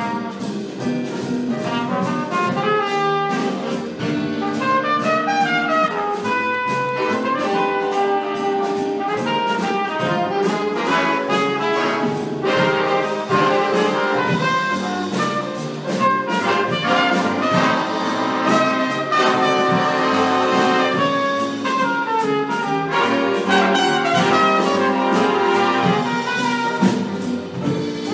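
Jazz big band playing live: trumpets and trombones out front with saxophones, over drums, bass, guitar and piano, the horn lines climbing and falling over a steady drum beat. It is a room recording, not taken from the sound board, so not every instrument comes through evenly.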